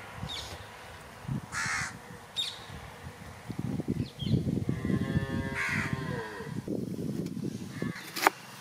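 Crows cawing a few times in short separate calls, about one and a half seconds in and again near six seconds, over a low rustling. Near the end a sharp tap of a knife blade striking a plastic cutting board as a shallot is sliced.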